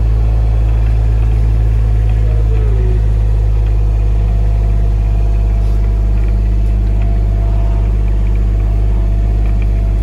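Engine of a small farm utility vehicle running steadily while driving across a field, a loud, even low drone heard from inside its cab.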